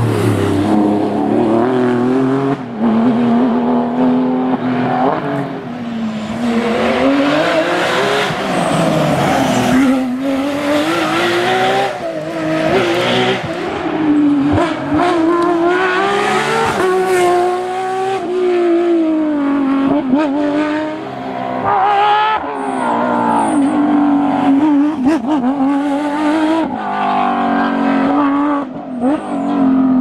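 Porsche 911 GT3 rally cars' flat-six engines revving hard, several cars in turn, the pitch climbing through each gear and dropping on every lift and shift.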